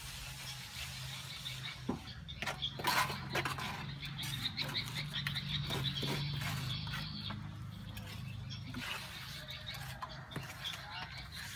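Steel trowels scraping and smoothing wet cement render on a wall, a rapid repeated scrape with a few sharp knocks between two and four seconds in. A steady low hum runs underneath.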